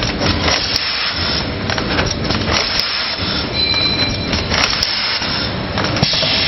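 Rotary pouch packing machine for shampoo running, with a steady mechanical clatter and scattered knocks as the carousel indexes the pouches. A short high squeal comes a little past halfway.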